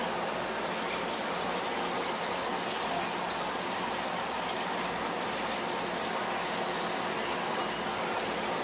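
Aquarium filter water running and splashing steadily into a turtle tank, with faint bubble ticks and a low steady hum.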